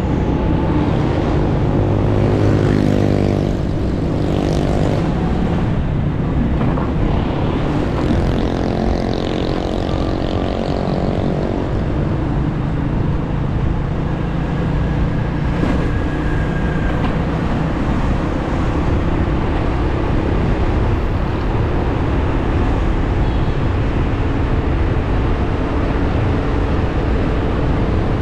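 Motorcycle engine heard from on board, rising in pitch as it accelerates twice, then running steadily under a constant rumble of road and wind noise.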